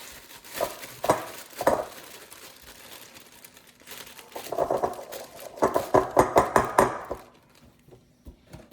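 Plastic brownie-mix packaging crinkling and rustling as it is torn open and handled, in short bursts, with a busier stretch of rapid crackling about five to seven seconds in.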